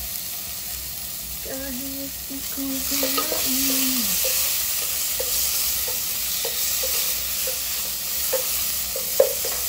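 Sliced ginger, garlic, onion and tomato sizzling as they sauté in a nonstick pot, stirred with a wooden spatula. The sizzle swells about three seconds in, and the spatula knocks against the pot several times, hardest near the end.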